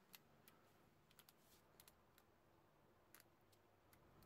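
Near silence with about ten faint, sharp clicks at uneven intervals from a half-inch drive click-type torque wrench being handled and turned in gloved hands.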